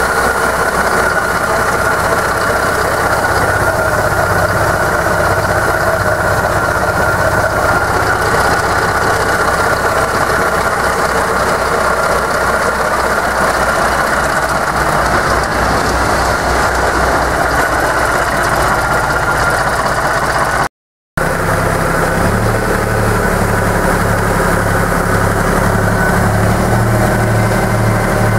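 Deutz F6L 413 air-cooled V6 diesel of a Brookville 15-ton mining locomotive running steadily. The sound drops out for a moment about three-quarters of the way through, and after that a low throb pulses evenly, about one and a half beats a second.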